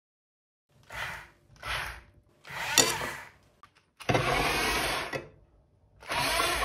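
Small electric gear motors of a toy radio-controlled excavator whirring in five short bursts as its arm works a spoon; the longest and loudest run is about a second, starting some four seconds in.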